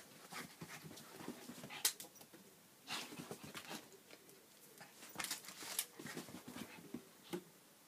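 Shih Tzu scrambling after a ball on floor mats: irregular bursts of paw scuffing and sharp knocks, the sharpest about two seconds in, with busier flurries near three seconds and between five and six seconds.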